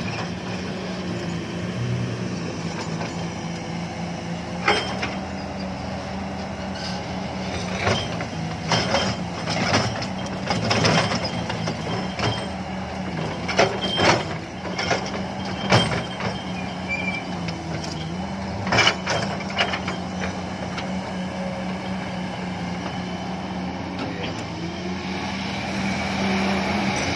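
Kobelco SK200 hydraulic excavator's diesel engine running steadily under working load, with a series of sharp clanks and knocks from the arm and bucket as it digs and swings. The engine note gets louder near the end as the boom is raised.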